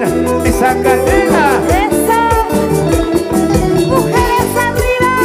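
Latin dance music with a steady beat, played loud, with gliding melodic lines over the rhythm.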